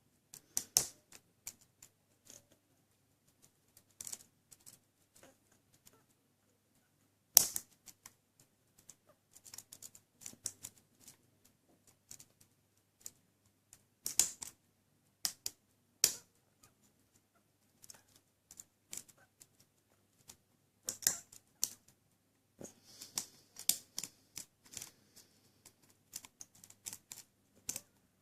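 Lock pick and tension wrench working the serrated pins of an ACE A527 padlock under very light tension: small irregular metallic clicks and scrapes, with a sharper click every few seconds and a denser run of clicks about three quarters of the way through.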